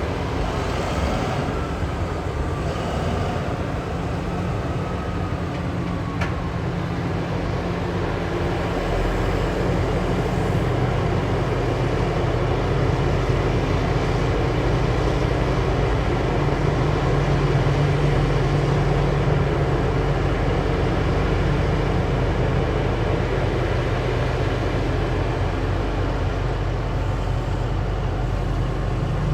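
Heavy diesel engines of a mining excavator and haul truck running steadily, a continuous low drone that grows a little louder after about nine seconds.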